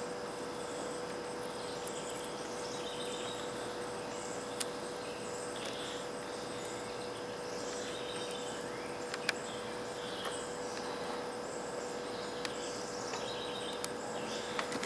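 Outdoor background of insects and birds chirping over a steady hum. A few sharp little clicks come through, the strongest about nine seconds in, from the small metal crimp pin and plastic quick-disconnect connector being handled.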